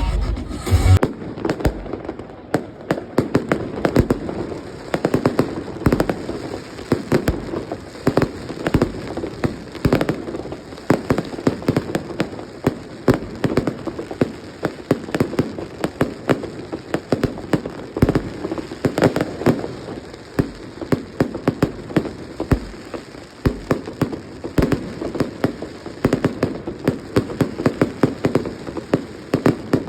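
Fireworks going off continuously: a dense, irregular stream of sharp pops and bangs with a crackling haze underneath.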